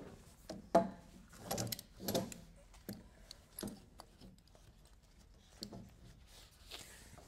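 A nylon lifting strap and its metal hook being fastened to an overhead beam: a sharp click about a second in, then rubbing and scraping and a few lighter clicks.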